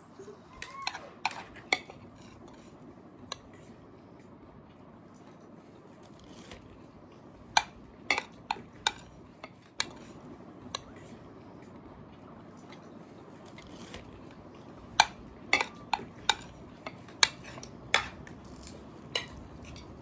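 Scattered sharp clinks and clicks of kitchenware, such as utensils against dishes or a pot, coming in small clusters, over a low steady background hiss.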